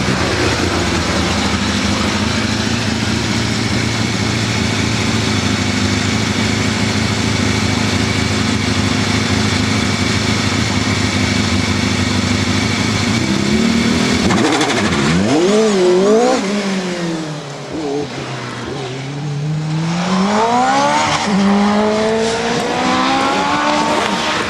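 Single-seater hillclimb racing car's engine held at high, steady revs on the start line, then launching away. About halfway through the revs climb and drop sharply several times through quick gear changes, sag briefly, then rise again as the car accelerates up the hill.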